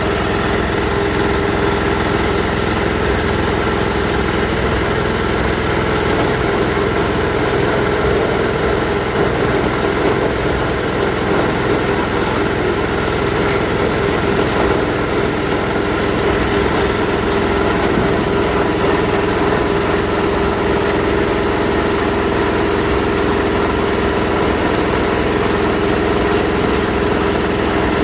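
Coconut husk grinding machine running at a steady, even pitch.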